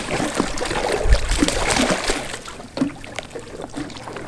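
Water splashing and sloshing against a capsized sea kayak as the paddler moves beneath it, with a low thump about a second in. The splashing eases off in the second half.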